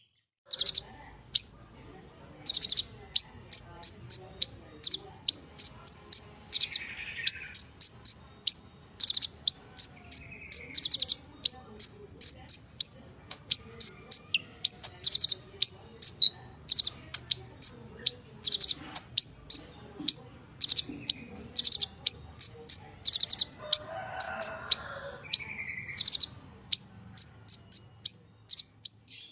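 Purple-throated sunbird singing a fast, unbroken string of high, sharp chirps mixed with short buzzy trills.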